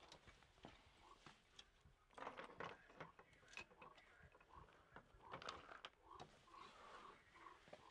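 Faint clicks, taps and light rustling of small objects being handled on a slatted garden table: a cup and a cigarette pack picked up and set down.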